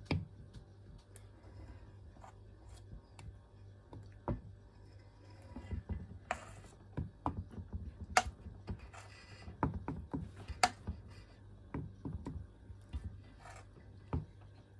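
A metal spoon scooping runny minced-meat filling and tipping it into dough cups, giving irregular clinks, taps and scrapes, a few sharper clinks in the second half.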